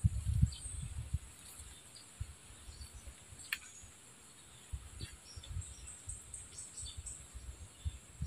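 Steady high drone of insects with scattered short chirps. Underneath are irregular low thumps and rumbles, heaviest in the first second and again from about five seconds in.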